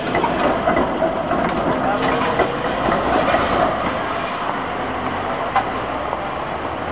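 PCC tram passing close by on street track, a steady rumble of wheels on rail and running gear that eases slightly toward the end.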